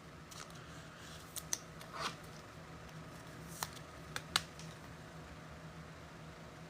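Trading cards and packs being handled at a table: a few faint clicks and ticks over a low steady hum.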